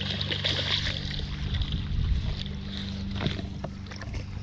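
A hooked bass thrashing and splashing at the pond surface close to the bank as it is reeled in. There are scattered splashes, the strongest a little after three seconds in, over a steady low hum, with wind buffeting the microphone about two seconds in.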